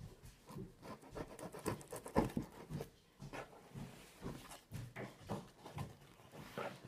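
A broken pair of scissors cutting through a cardboard shipping box: a run of irregular rasping snips and scrapes as the blades chew along the box's edge.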